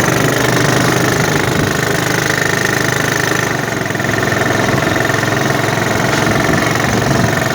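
Small home-built car's Honda Supra motorcycle engine, a single-cylinder four-stroke, running steadily.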